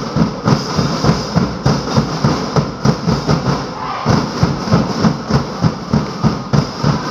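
Drums beating a steady, fast rhythm, about two to three beats a second.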